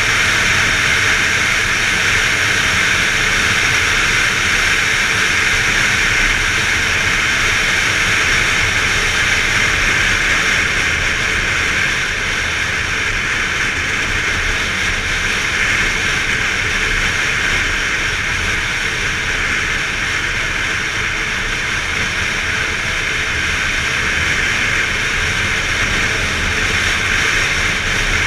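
Steady wind rush on a GoPro mounted on a Yamaha XTZ 250 Lander, with the bike's single-cylinder engine running underneath at riding speed; it eases off slightly about twelve seconds in.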